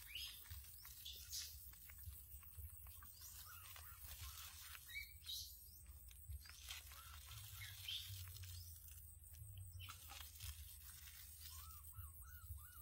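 Faint, high, short animal chirps, each rising quickly, scattered every second or two. Near the end there is a quick run of smaller, lower chirps, all over a steady low hum.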